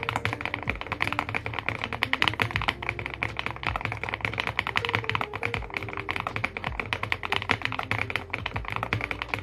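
Fast, continuous typing on a Weikav Max102 mechanical keyboard, a dense run of keystroke clacks several per second, over soft background music with a low beat.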